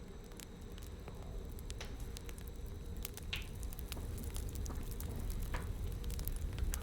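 Bonfire crackling, with sharp irregular pops over a low rumble of flames, fading in and growing louder.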